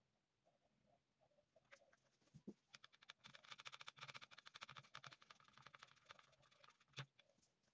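Thin wooden stick stirring epoxy resin in a plastic measuring jug, scraping and tapping the jug's side: a faint, rapid run of ticks for about three seconds, then one sharper knock near the end.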